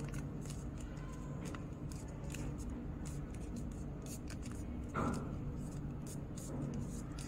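Paper being folded and creased by hand into a paper airplane: light crinkles and rustles, with one louder rub of paper about five seconds in, over a steady low hum.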